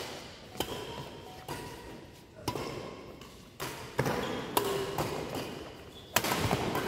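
Badminton rackets striking a shuttlecock during a doubles rally: sharp hits about once a second, about seven in all, echoing in a large indoor hall.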